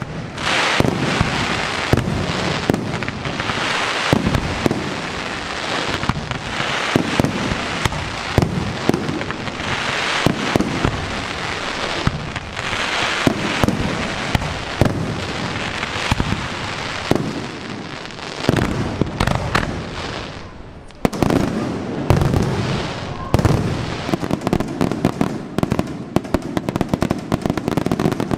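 Pyrotechnic fireworks display: aerial shells bursting in quick succession, sharp bangs overlapping with crackle. It thins out briefly just before twenty seconds in, then picks up again with a loud burst and a dense run of rapid cracks toward the end.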